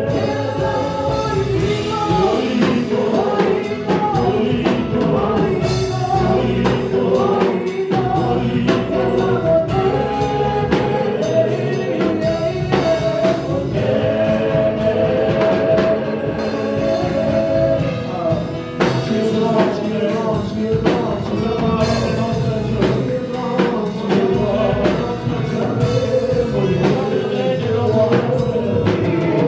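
Gospel worship music: a group of singers in the manner of a choir, backed by a band with drums.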